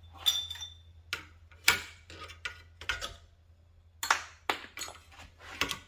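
Pliers prying copper pieces off a metal extrusion: a series of about a dozen sharp metal clicks and clinks at irregular intervals, one ringing briefly just after the start.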